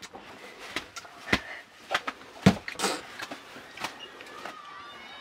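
A handful of irregular sharp knocks and clicks, about four in a few seconds, against low background noise.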